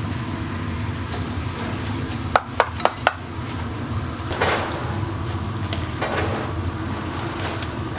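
Kitchen utensils at a street-food stall: four quick sharp knocks about a quarter second apart, then a short scraping swish, over a steady low hum.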